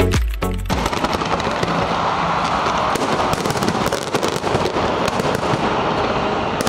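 Fireworks display going off: a dense, continuous crackle of many overlapping pops and bangs.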